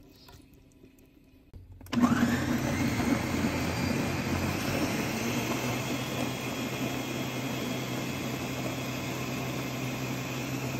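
Ninja countertop blender starting about two seconds in, its motor whining up to speed and then running steadily as it purées a liquid sauce of cooked chiles and tomato.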